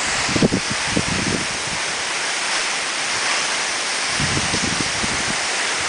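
Steady rushing noise of wind, with low gusts buffeting the microphone twice.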